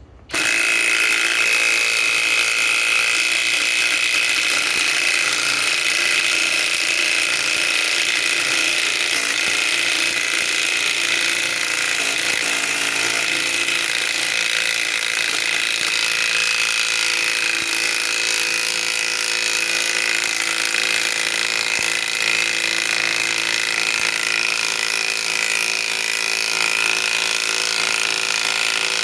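Flex FX1431A compact cordless impact wrench hammering continuously under heavy load, driving a large lag screw. It starts abruptly and keeps a steady, high-pitched rattle throughout.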